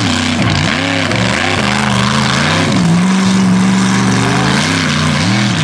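Mega truck engine revving up and down over and over as the truck works through the dirt. It holds a steady pitch for about a second midway, then goes back to quick rises and falls near the end.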